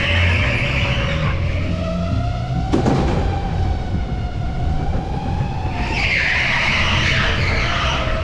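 Electric go-kart's motor whine rising and falling with speed, with tyres squealing through corners at the start and again from about six seconds in. A single sharp knock comes about three seconds in.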